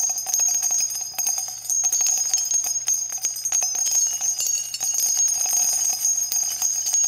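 Outro music of bells jingling, a dense shimmer of rapid shakes with bright high ringing throughout.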